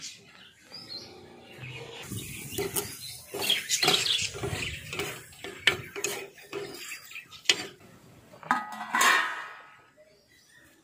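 Repeated clinks and knocks of a stainless steel plate and its contents being handled, with a short ringing sound near the end.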